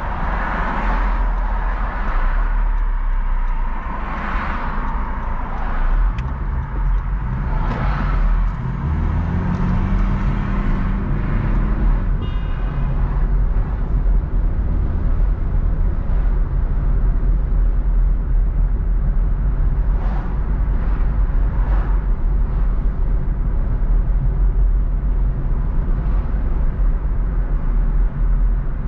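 Car driving on city streets: a steady deep road and engine rumble, with other traffic swishing past a few times in the first several seconds. About ten seconds in, an engine's pitch rises as it accelerates, then settles into a steady drone.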